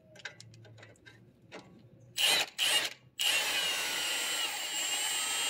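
Cordless power tool spinning the nut off the lower stud of a sway bar end link: two short bursts, then a steady run with a high motor whine from about three seconds in as the nut backs off.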